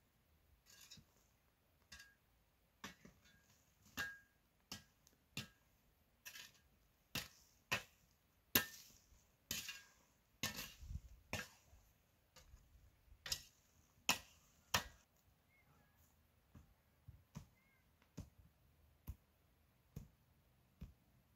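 Steel shovel blade scraping into dry, stony soil and dumping it onto a heap of stones: a run of irregular scrapes and knocks, densest in the middle and thinning out toward the end.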